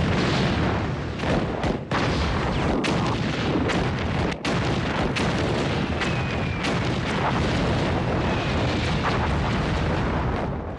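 Battlefield artillery: a continuous heavy rumble of gunfire and shell explosions with scattered sharp cracks, and a couple of faint falling whistles of incoming shells around the middle.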